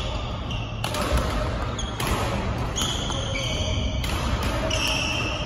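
Badminton play on an indoor court: a few sharp racket strikes on the shuttlecock and brief squeaks of court shoes on the floor, over a steady low hum.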